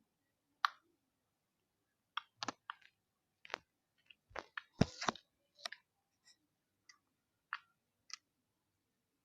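Slime made from Barrel O' Slime being stretched and squished by hand, giving off irregular sharp clicks and pops, with a loud cluster about halfway through.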